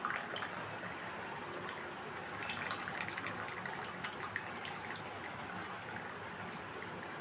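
Hot herbal decoction (kadha) being poured through a tea strainer into a glass: a faint trickle of liquid with scattered small ticks, busiest about two and a half to three seconds in.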